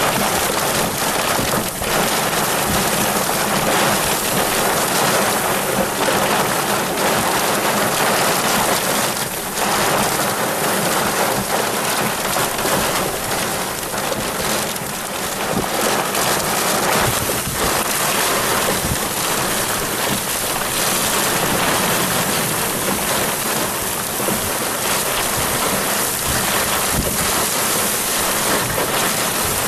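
Heavy rain falling steadily in a thunderstorm, a dense even hiss with only small swells in loudness.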